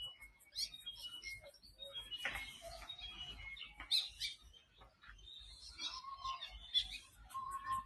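Several birds chirping and calling, with many short high notes scattered irregularly and a couple of brief lower whistled notes near the end.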